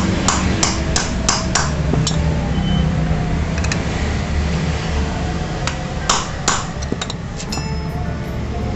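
Hammer striking a 19 mm socket to drive a new 6902 ball bearing into its seat: a quick run of about seven metallic strikes in the first two seconds, then a few scattered taps later, over a steady low hum.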